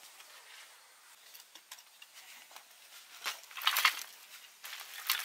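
Loose dry soil being scraped and scooped by hand, heard as short gritty rustles. The loudest comes in a run of bursts between about three and four seconds in, with another just before the end.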